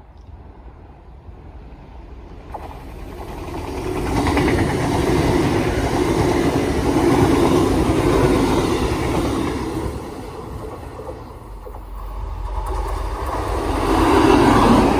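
A train running past with a steady rail rumble, building over the first few seconds, easing about ten seconds in, then swelling again near the end.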